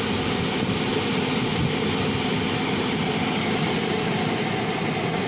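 Dodge Caravan's rear A/C blower running, a steady rush of air, while the newly replaced blend door actuator moves the door without the earlier clicking.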